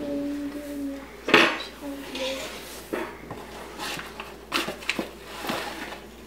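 Glass measuring cup knocking and clinking as it is dipped into a paper bag to scoop flour, with one sharp loud clink about a second in and several lighter knocks after it.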